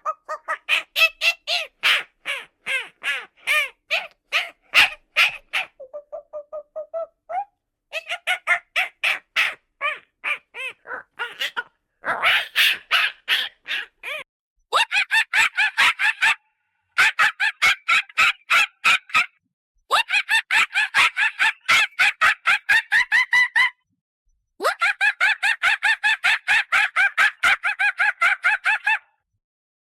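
A monkey calling: a long series of short, quick, pitched calls in bouts of a few seconds with brief pauses between them. The calls come about three a second at first and speed up to about six or seven a second in the later bouts.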